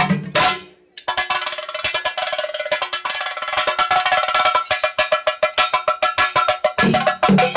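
Singari melam percussion: the chenda drums cut off abruptly, and after a brief pause the ilathalam, small bronze hand cymbals, keep a fast, even clashing beat on their own. Near the end the chenda drums come crashing back in.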